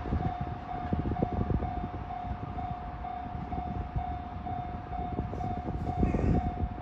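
Railway level crossing warning bell ringing on one steady repeating tone over a low rumble.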